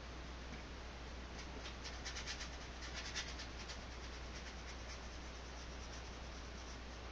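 Flat nylon brush scrubbing acrylic paint onto canvas: a scratchy rubbing in a run of quick short strokes, loudest about two to three and a half seconds in.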